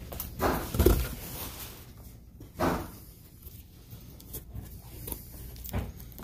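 Handling noises: three dull knocks and some rustling as a shotgun is shifted about in a cardboard box, one knock about half a second in, one about two and a half seconds in and one near the end.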